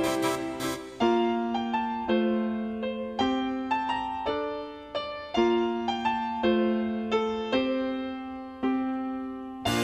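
Background music: slow solo piano, a new chord struck about once a second and each fading away, with a brief bright shimmer right at the start.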